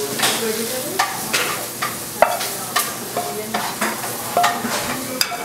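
Wooden spatula scraping and knocking against a metal pan and a ceramic bowl as cooked cherry tomatoes are pushed out of the pan, over a steady hiss; a few of the knocks ring briefly.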